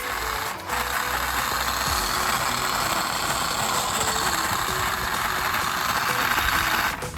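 Small electric motor and gears of a toy RC car running, a steady whirr that starts just under a second in and cuts off near the end, over background music.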